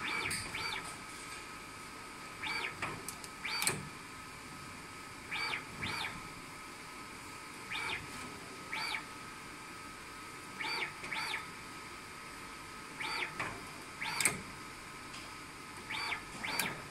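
Axis motors of a TBS-T-6331RCM automatic soldering robot moving the iron between joints: pairs of short whines that rise and fall in pitch, repeating about every two and a half seconds, with a few sharp clicks and a faint steady high tone underneath.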